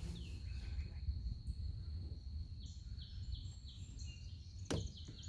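Birds chirping in short bursts over a steady high-pitched insect drone and a low outdoor rumble, with one sharp knock near the end.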